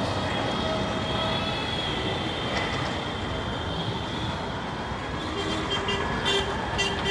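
Steady rumble of vehicle noise with a thin high whine over the first few seconds, and a few short high-pitched beeps near the end.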